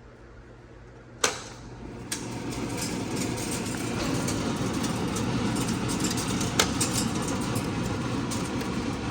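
A sharp switch click, then a fan starting up with a steady rushing noise that swells over about a second and holds, with a few small clicks over it.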